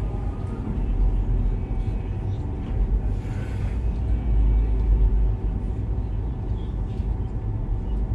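Steady low rumble of background noise with faint hum tones, and a brief hiss or rustle about three seconds in.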